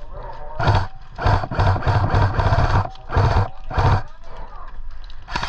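Electric airsoft shotgun (EMG SGR12) firing on full auto in bursts: a short burst, a long burst of about one and a half seconds, two more short bursts, and a last short burst at the end, each a rapid mechanical clatter of shots over the gearbox motor.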